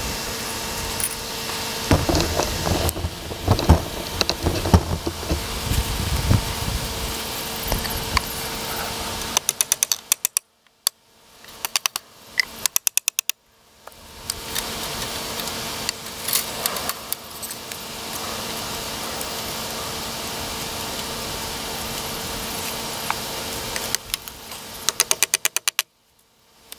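Knocks and rattles of fence wire and a wooden stick being handled while a brace wire is twisted tight on a wooden corner post, over a steady hum. The sound drops out abruptly several times, with quick runs of clicks.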